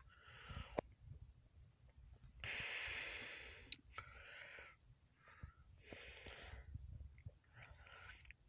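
A person breathing faintly close to the microphone: about half a dozen soft breaths, the longest and loudest one about two and a half seconds in.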